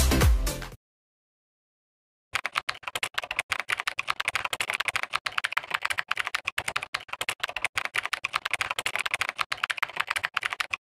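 Music cuts off just under a second in, followed by a short stretch of total silence. From about two seconds in comes a quick, even run of keyboard-typing clicks, a typing sound effect laid under text being written out on screen.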